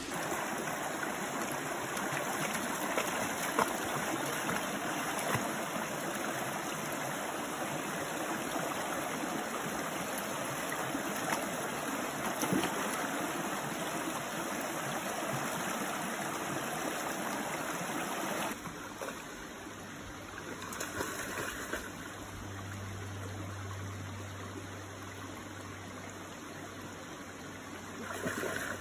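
Shallow creek water running and trickling over rocks as a steady rushing wash. It turns quieter about two-thirds of the way through, with a low steady hum underneath from then on.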